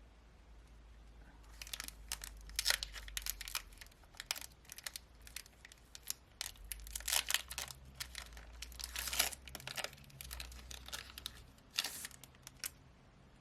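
Foil wrapper of a Pokémon trading card booster pack being torn open and crinkled: a run of irregular crackling rustles starting about a second and a half in and stopping near the end.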